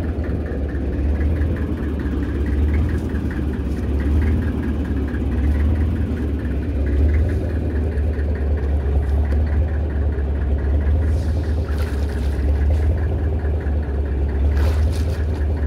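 A small fishing boat's engine running steadily, a deep even hum with a fast regular ticking over it, as the boat pushes its prawn net along.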